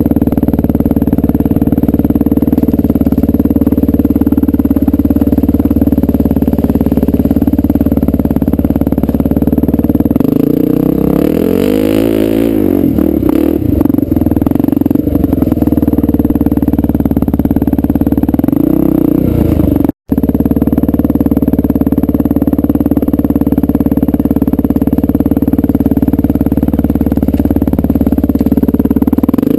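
1998 Honda XR400R's single-cylinder four-stroke engine running under way off-road, loud and steady. About eleven seconds in the revs climb and fall over a few seconds as the bike pulls up a slope, with a smaller rise and fall near nineteen seconds. The sound cuts out for an instant about twenty seconds in.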